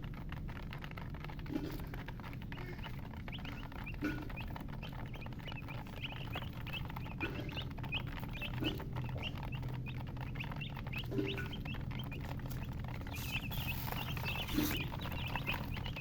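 Baby chicks peeping: many short, high chirps in quick succession, growing busier toward the end, with a short lower note every second or two over a steady low hum.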